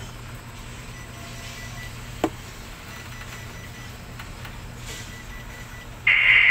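Steady low hum of tower crane machinery while a precast wall panel hangs on the hook and is moved, with one sharp click about two seconds in.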